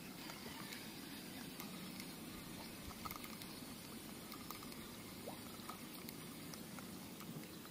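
Faint water sounds close by: light lapping and small drips with scattered soft ticks.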